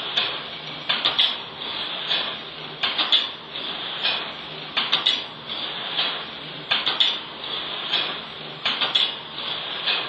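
YJ-18 automatic wire hanger making machine running, bending PVC-coated steel wire into hangers. A steady mechanical whir is broken about every two seconds by a quick cluster of metallic clacks, one for each forming cycle.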